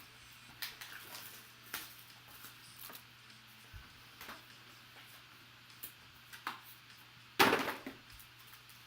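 Trading-card box and packaging being opened and handled: scattered light clicks and rustles, with one louder, longer rustle about seven and a half seconds in. A faint steady hum runs underneath.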